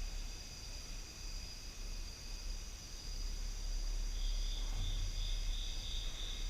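A cricket chirping in an even pulse of about three chirps a second, starting about four seconds in, over a steady low hum.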